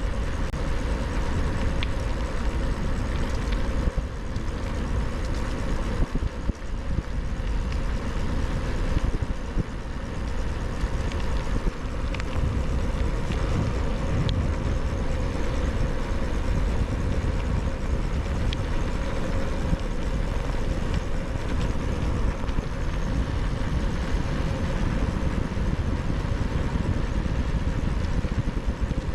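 Wind and tyre noise picked up by a GoPro's microphones under furry dead-cat windscreens on a moving bicycle: a steady low rumble with a faint hiss above it.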